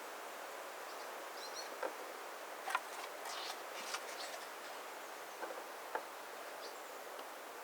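Faint outdoor background hiss with a handful of light clicks and knocks spread through, the sharpest near the middle, and a couple of faint high bird chirps.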